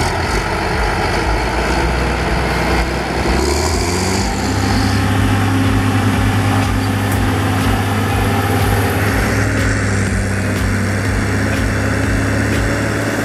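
Rába 320 tractor's John Deere PowerTech diesel engine running steadily at constant speed.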